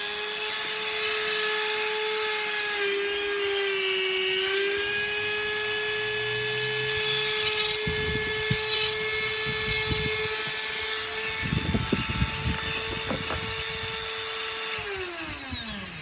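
Rotary multi-tool running through its flexible shaft attachment, a steady high whine whose pitch sags briefly a few seconds in. From about halfway, scratchy rasping comes in as the bit in the handpiece deburrs the end of a small tube. Near the end the motor is switched off and its whine falls away.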